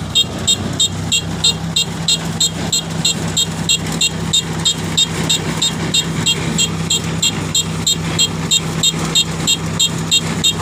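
Kubota DC-70 Plus combine harvester's diesel engine running steadily, with an electronic warning buzzer beeping rapidly and without pause, about four short high beeps a second.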